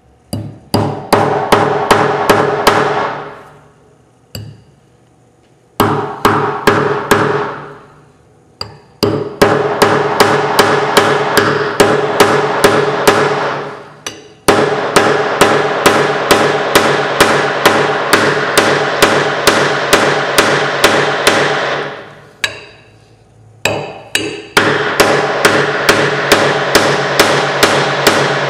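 Hand hammer blows driving wedges into the top of a new wooden hammer handle, seated in the steel head's eye. The blows come rapidly, about five a second, in runs broken by short pauses, and each strike rings.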